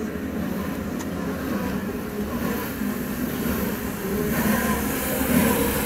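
Several Honda CB1300P police motorcycles with inline-four engines running together as they ride in formation. The sound grows louder about four seconds in as the bikes come close.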